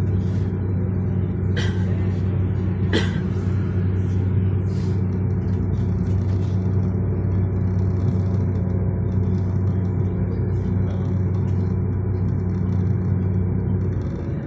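Electric tram running, heard from inside the car: a steady low hum with two sharp clicks about a second and a half apart, a couple of seconds in. The hum eases slightly near the end.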